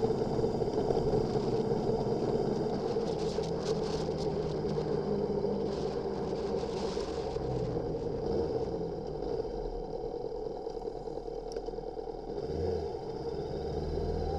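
Motorcycle engine running under steady wind and road noise from a bike-mounted camera while riding, the engine note shifting up and down with changes in speed.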